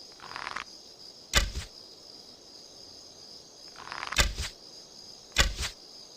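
Bow and arrow shots: short whooshes and three sharp double-struck thwacks, about a second and a half in, about four seconds in and near the end. A steady high insect chirring runs underneath.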